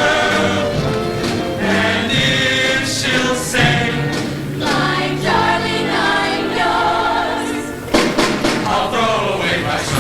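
Show choir singing in harmony over band accompaniment, with a sharp ensemble accent about eight seconds in.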